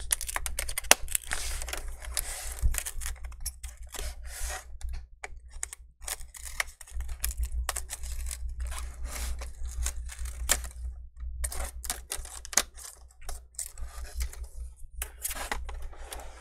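Irregular clicks, ticks and scratchy scraping from an HP 15-dy laptop's plastic screen bezel as it is pried and worked loose from the LCD along its double-sided adhesive tape. The clicks come unevenly, a few at a time, with short scraping stretches between them.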